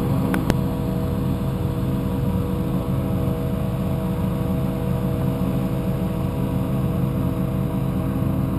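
Engine-driven inflator fans running steadily, blowing cold air into hot-air balloon envelopes on the ground, a constant motor drone. Two short clicks about half a second in.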